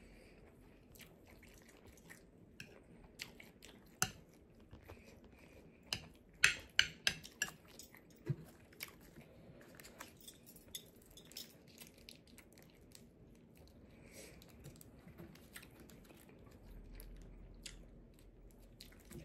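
Close-miked chewing and wet mouth sounds of someone eating fried rice, with short clicks of a metal spoon against a glass bowl. The clicks are densest and loudest about six to seven seconds in.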